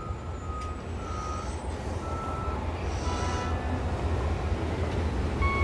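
Short electronic beeps of uneven length over a steady low rumble, with no engine catching: a salvaged Polaris RZR side-by-side that does not start.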